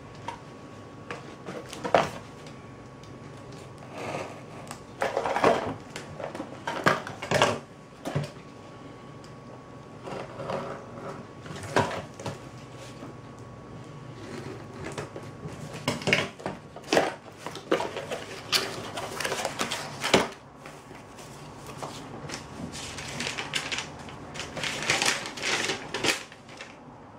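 Cardboard box being opened by hand: a blade slitting packing tape, with scattered clicks, knocks and rustling as the flaps and contents are handled. Paper rustles near the end as a folded letter is taken out.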